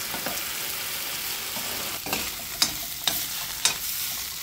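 A spoon stirring food frying in a pan, with a steady sizzle and four sharp clicks of the spoon against the pan in the second half.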